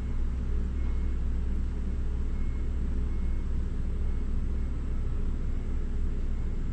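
Cat purring steadily while its head and cheek are stroked: a continuous low, fluttering rumble, the sign of a relaxed, contented cat.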